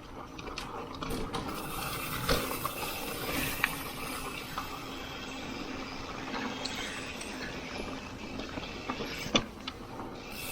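Niner Jet9 RDO full-suspension mountain bike rolling over a rooty dirt trail: steady tyre and drivetrain noise, with a few sharp knocks as it hits roots.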